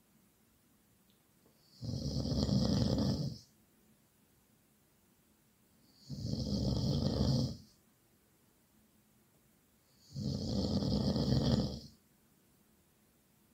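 Loud snoring: three long snores about four seconds apart, each lasting about a second and a half, with quiet breathing gaps between them.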